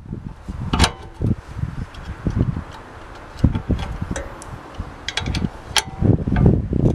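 A spanner tightening a nut on the cement mixer's sheet-steel motor housing: irregular metallic clicks and knocks, with a few sharper clicks about a second in and again near the end.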